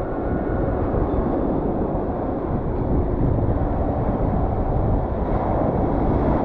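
Steady wind buffeting the microphone, a continuous low rumbling noise with no distinct events.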